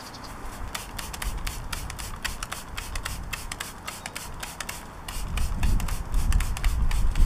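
Handheld trigger sprayer squirting tyre cleaner onto a car tyre in quick, short bursts, several a second. A low rumble comes in about five seconds in and is the loudest part.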